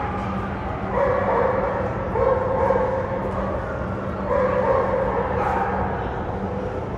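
A dog whining in repeated drawn-out cries, a few in a row with short gaps between them, over a steady low hum.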